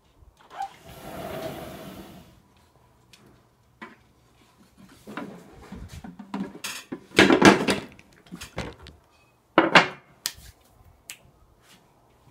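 Kitchen clatter: a brief hissing rush about a second in, then a run of knocks and bangs of things being handled, the loudest cluster just past the middle and another sharp knock near the end.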